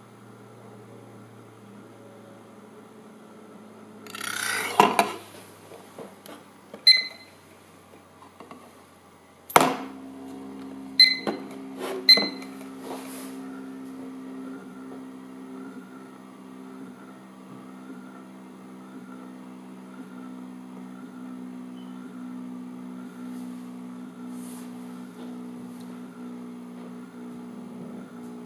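Small precision spinning top set spinning on a magnetic base. There is a rustle, then a few sharp metallic clicks, and a hard click about a third of the way in. After that comes a steady hum with a slow, regular wobble as the top spins on.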